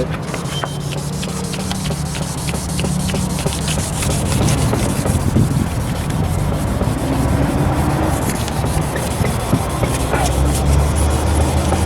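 2000-grit sandpaper rubbed back and forth over a plastic headlight lens, a steady scratchy sanding. This is the fine-grit stage that replaces coarser scratches with smaller ones.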